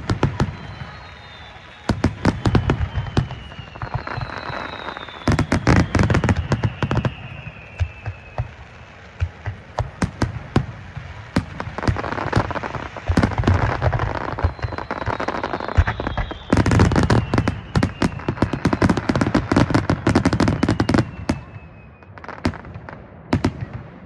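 Aerial fireworks going off: a rapid run of sharp bangs and crackling bursts. A falling whistle sounds in the first few seconds and again just after the middle.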